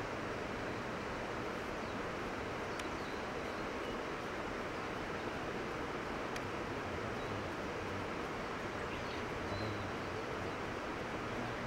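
Steady outdoor background noise, an even hiss without a clear rhythm, with two faint clicks and a few faint high chirps.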